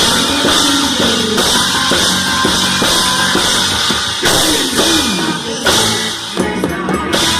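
Loud recorded dance music with a driving drum-kit beat and guitar, played over a sound system, fading down near the end.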